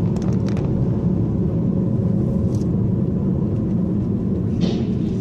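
Steady low rumble of a car driving on the road, heard from inside the car through a dashcam, with a short hiss about four and a half seconds in.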